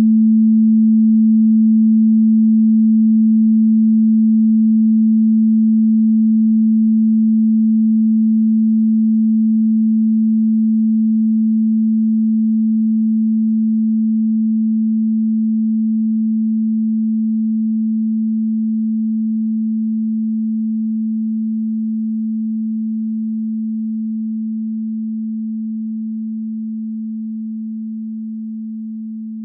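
A single steady pure electronic tone, low in pitch, held without change and slowly fading out towards the end.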